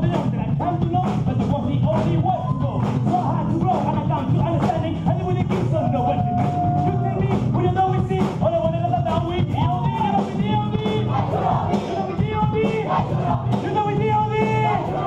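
Gospel choir singing with a live band, voices carrying the melody over drums and a steady beat, with hand clapping along.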